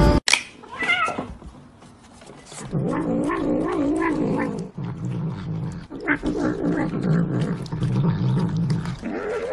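A domestic cat meowing and yowling in drawn-out, wavering calls: a short call about half a second in, then a longer wavering one from about three seconds in, with more calls near the end.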